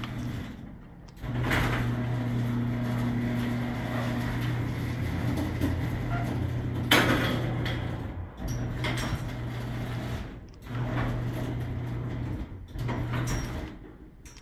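Stanley garage door opener's worm-gear drive motor running with a steady hum as it moves the door down, with a sharp knock about seven seconds in. After that the motor stops and restarts in several short runs near the end of travel: a weird noise the owner puts down to a gear that is probably chipped.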